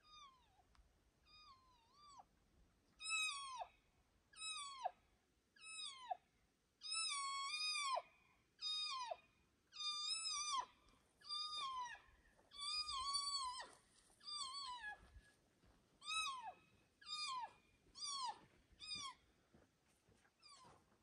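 Cow elk mews blown on a hunter's elk call, repeated about once a second to draw in a bull. Each call is a high, cat-like note that breaks downward at its end, and a few are drawn out longer.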